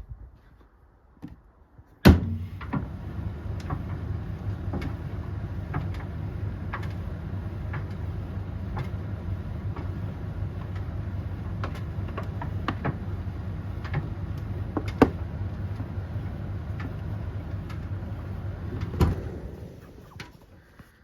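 Tumble dryer drum running with a steady low rumble, with scattered knocks of the load tumbling inside. It starts with a sharp click about two seconds in and stops at another loud click near the end, the rumble dying away over about a second.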